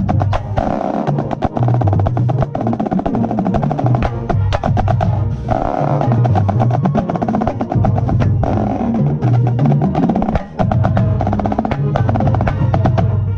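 Marching snare drum played close up, fast strokes and rolls, over a full marching band playing a funk tune with low brass carrying the bass line.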